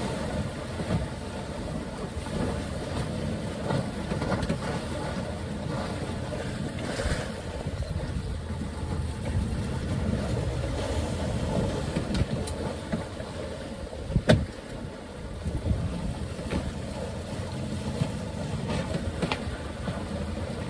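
Steady wind and water noise aboard a sailboat under way, with a single sharp knock about two-thirds of the way through.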